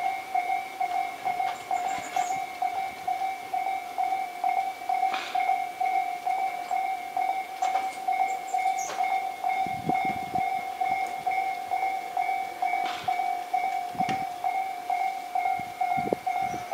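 Japanese level crossing warning bell ringing throughout: one high electronic ding repeated in a quick, even rhythm. Beneath it, a Tobu 8000 series electric train rolls slowly over the rail joints and points, giving a few low clunks around the middle and near the end.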